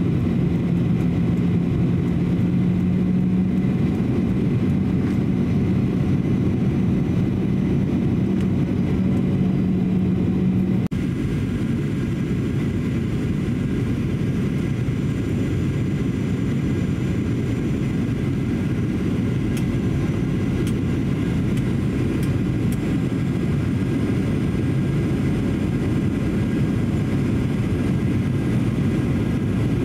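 Steady cabin noise of a Boeing 737-800 in descent: its CFM56-7B turbofan engines running, with airflow over the fuselage, heard from inside the cabin. A low steady hum within the noise stops abruptly about eleven seconds in, and the level drops slightly.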